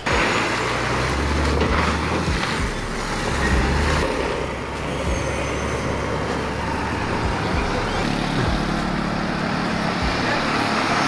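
Street traffic noise with a motor vehicle running close by, a steady low rumble under a hiss of road noise, with a few brief low thumps.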